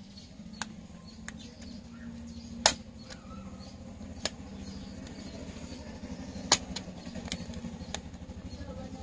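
Sharp plastic clicks as the case of a StarTimes TV remote is pried open with a small tool and its snap clips let go. There are about eight clicks in all; the two loudest come about two and a half and six and a half seconds in.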